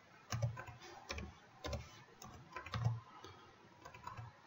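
Computer keyboard keystrokes: a string of separate clicks at uneven intervals, a couple a second, as an address is typed in.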